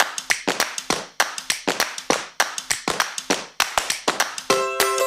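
A quick run of sharp, irregular taps or claps, about five a second. Plucked-string music comes in near the end.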